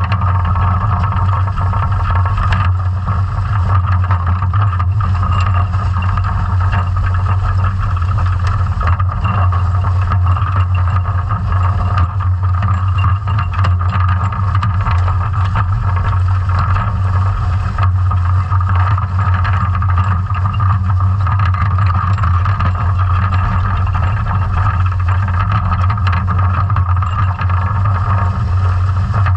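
Steady underwater noise of a scallop dredge under tow on the seabed, picked up by a camera housed on the dredge: a constant low rumble with hiss and many small scattered clicks.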